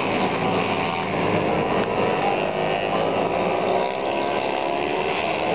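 Several small underbone racing motorcycles running hard around the circuit. Their engine notes overlap in a steady, layered buzz that shifts a little in pitch as they pass.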